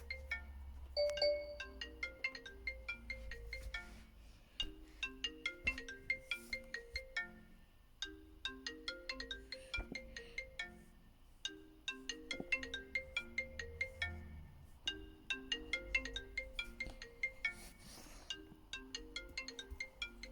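Mobile phone ringtone: a short, quick melody of pitched notes that repeats about every three and a half seconds.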